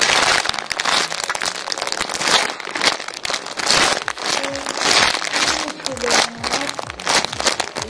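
Clear plastic packaging crinkling and crackling without let-up as fingers squeeze and rub the squishy toy sealed inside it.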